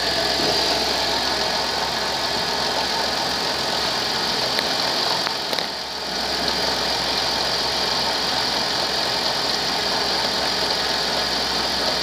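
2001 Chrysler Town and Country's 3.3-litre V6 engine running steadily at idle, with a steady high-pitched hiss over the engine note.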